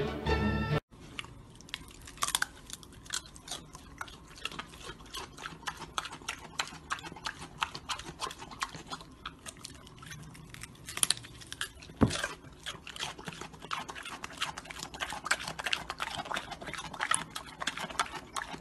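Pig chewing a crunchy vegetable: a dense, irregular run of crisp crunching and smacking clicks, with a few louder crunches about two-thirds of the way through.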